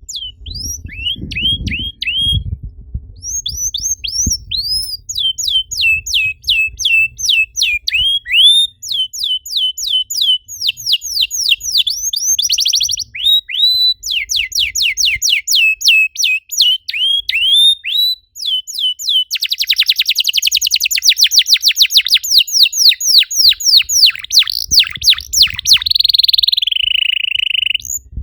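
Canary singing a continuous song of rapid repeated downward-sweeping whistled notes and fast trills, with dense buzzy rolls midway and again from about two-thirds in, ending on a held note that slides down in pitch. A faint low rumble sits under the first few seconds.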